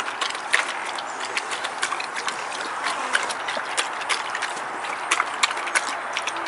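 Beagle eating kibble from a stainless steel bowl, fast: rapid, irregular crunches and clicks against the metal, several a second.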